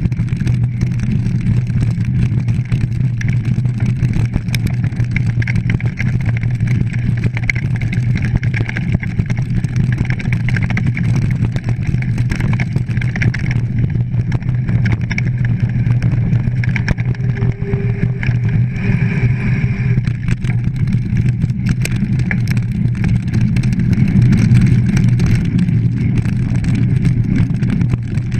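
Mountain bike ridden fast over a rough grass and dirt trail, heard through a GoPro action camera: a steady loud rumble of wind on the microphone and tyres on the ground, with constant small rattles and clicks from the bike.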